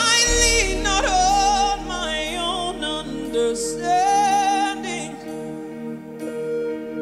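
A woman's solo gospel singing into a microphone, with long wavering held notes and runs, over sustained instrumental chords. The voice eases off for the last couple of seconds while the chords carry on.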